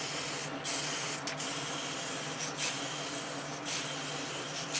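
Polyurethane spray finish hissing steadily from the nozzle, broken by several short pauses between spray passes as coats go onto the drawer.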